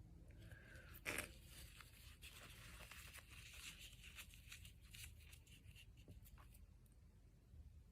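A single sharp sneeze about a second in, followed by a few seconds of soft crinkling and rustling made up of many short crackles.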